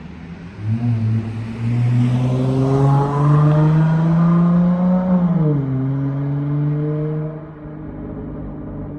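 Dodge Charger SXT's V6 exhaust through a Flowmaster Super 10 muffler, accelerating with a slowly rising drone from about a second in. A little past halfway the pitch drops, then the engine runs steady and fades near the end.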